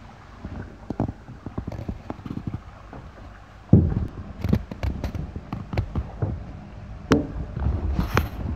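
Irregular knocks and thumps over a low rumble, loudest about a third of the way in and again near the end.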